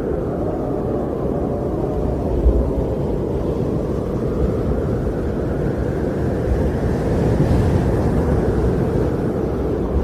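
Wind blowing in a steady low rush that slowly swells and eases, building a little toward the later part.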